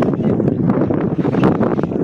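Wind buffeting the microphone: a loud, continuous rush of noise, heaviest in the low end, with frequent crackles.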